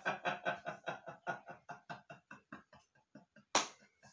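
A man laughing in a long run of short 'ha' pulses, about five a second, fading as it goes, with a single sharp smack near the end.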